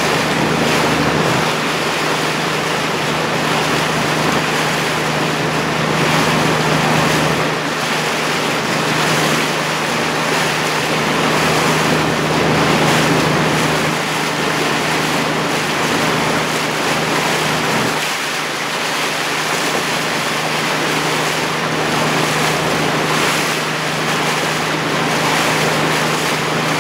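Steady hum of a motorboat's engine running at an even speed, over rushing water and wind noise on the microphone.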